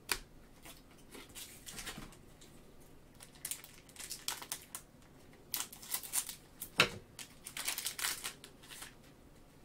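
A cello pack of trading cards being cut open with scissors and unwrapped by hand, in irregular short crinkles with a sharp snip-like click about two-thirds of the way through.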